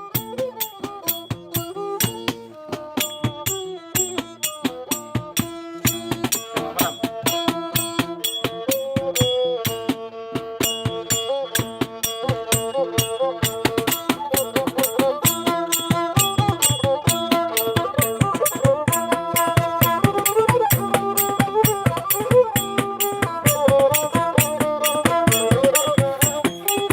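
Thai so fiddle bowing a folk melody with sliding notes, over a steady clicking percussion beat.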